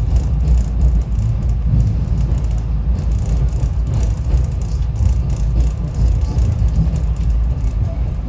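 SEPTA Regional Rail passenger train running along the track, heard from inside the car: a steady low rumble of wheels on rail with faint scattered clicks.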